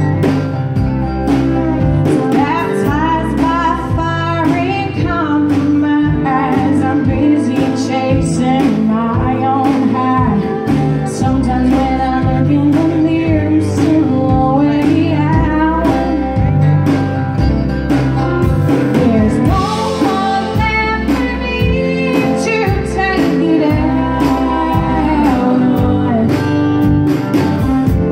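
Live band song: a woman singing lead over guitar, bass and drums, with steady drum beats.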